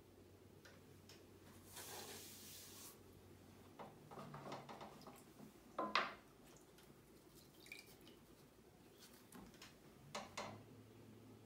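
Faint wet handling at a potter's wheel: a sponge rubbing on wet clay, then splashing and dripping in the throwing-water bucket. The loudest splash comes about six seconds in and a smaller pair near the end.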